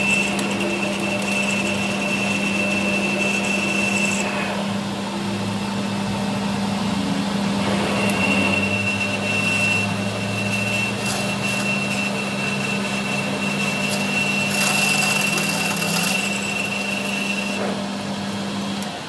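A workshop machine's motor running steadily with a constant hum and a high whine. The whine drops out for a few seconds, and the hum stops near the end.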